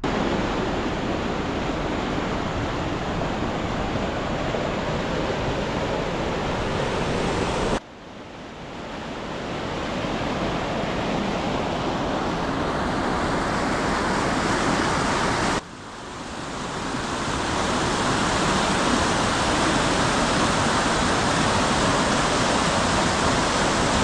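Fast mountain river rushing over rocks and cobbles: a loud, steady rush of water. It breaks off abruptly twice, about 8 and 16 seconds in, and swells back each time.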